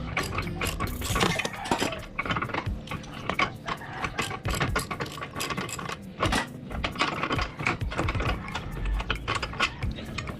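Irregular metallic clinks and rattles of hand tools and exhaust parts as a scooter's stock exhaust pipe is unbolted and taken off.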